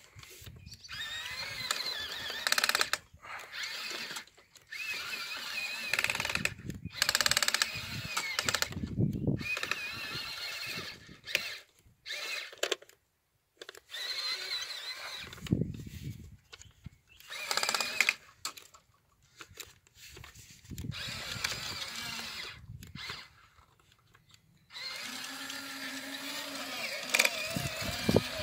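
Small geared electric motors of a 1/12-scale Hobby Engine RC crawler crane whining in repeated start-stop bursts as it drives and manoeuvres, with short silences between, then a longer steady run near the end.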